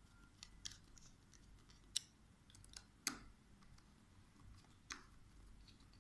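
Plastic battery cover and housing of a handheld scanner pistol grip being handled and pressed into place: a handful of small, sharp clicks and taps over a quiet background, the loudest about three seconds in.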